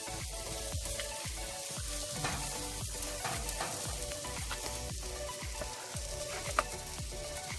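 Jerk chicken sizzling on a charcoal grill's wire grate, a steady crackle, with a fork clicking and stirring in a plastic bowl of sauce and one sharper click about six and a half seconds in.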